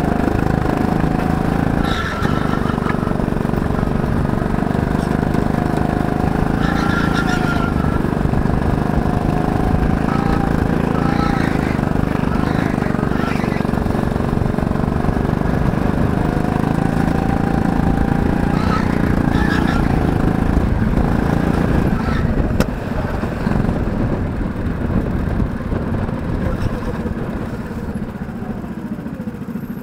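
Go-kart engine running under throttle around the track, its pitch rising and falling through the corners. A sharp click comes about three-quarters of the way in, and then the engine note drops away as the kart slows.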